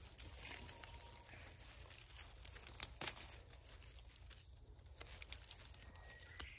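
Dry pine needles and dead leaves crackling and rustling under a gloved hand picking fern fiddleheads, with a couple of sharp cracks about three seconds in.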